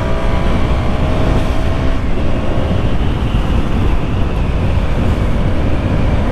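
Heavy wind rushing over the microphone, with the KTM Duke 200's single-cylinder engine running underneath as the motorcycle rides at highway speed.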